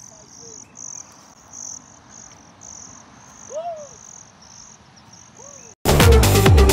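Insects chirping in short high pulses, about three a second, with a few short rising-and-falling calls. Near the end, electronic dance music with a heavy beat cuts in abruptly and loudly.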